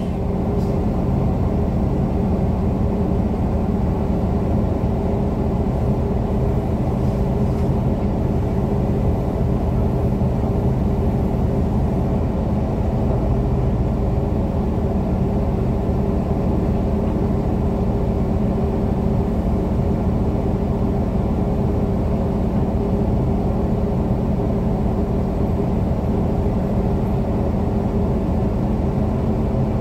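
Crane engine running steadily at an even speed, a low drone with a hum, heard from the operator's cab.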